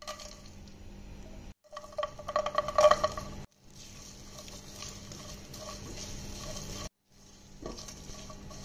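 Whole spices and almonds dry-roasting in a pan, stirred with a silicone spatula: dry rattling and light scraping of seeds on the pan, with a louder run of clinks from about two to three and a half seconds in.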